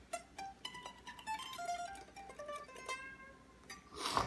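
Guitar being plucked: a quick run of single picked notes forming a melody, with a short burst of noise just before the end.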